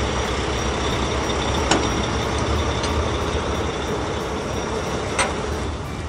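Heavy truck engine running steadily with a deep hum, with two short sharp clicks, one about two seconds in and one near the end.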